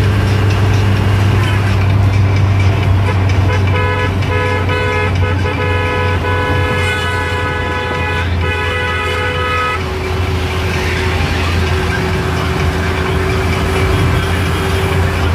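A vehicle's engine and road noise droning steadily inside the cabin at highway speed. From about four seconds in until about ten seconds in, a vehicle horn honks in a rapid series of short blasts.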